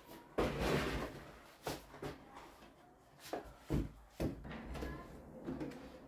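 Boxes being handled and set onto a wooden wardrobe shelf: a short scraping rustle about half a second in, then a series of separate knocks as they bump the shelf and each other.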